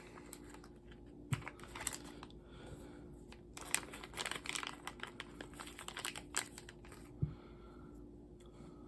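Faint scattered clicks and rustling of small hard objects being handled, with two soft low thumps, over a steady faint hum.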